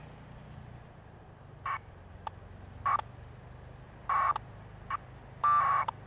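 1200-baud AFSK packet radio tones heard from a handheld radio: several short data bursts about a second apart, the longest near the end. They are the packet exchange as the Winlink client connects to an RMS gateway.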